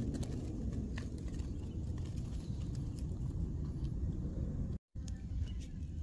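Low, irregular rumble of wind on the microphone, with scattered light clicks. The sound cuts out for a moment about three-quarters of the way in.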